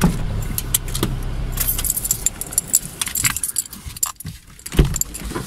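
Car interior as the car pulls up: the engine hums low for about two seconds, then goes quiet, while keys jangle and small clicks and rattles continue, with a thud near the end.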